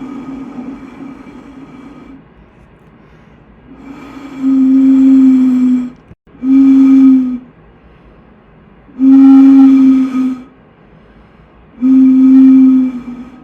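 A low-pitched horn sounding in repeated long blasts. A fading note comes first, then four separate blasts of a second or so each.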